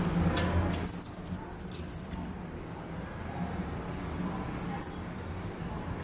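Outdoor city ambience along a riverside promenade: a low engine-like rumble drops away about a second in, leaving faint distant voices and light scattered clicks.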